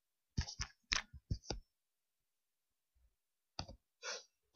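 Computer keyboard typing: a quick run of about seven keystrokes, a pause of a couple of seconds, then a few more keystrokes near the end.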